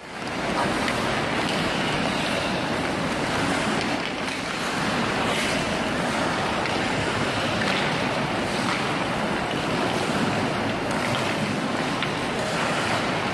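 Steady hissing din of an indoor ice rink during a skating drill: skate blades scraping and carving the ice under the hum of a large crowded hall, with a few faint clicks of sticks on pucks.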